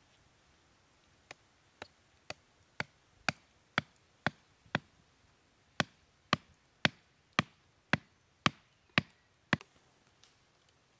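Wooden stakes being hammered into the ground with a metal tool: sharp knocks about two a second, in two runs of about eight strikes with a pause of about a second between them, the second run louder.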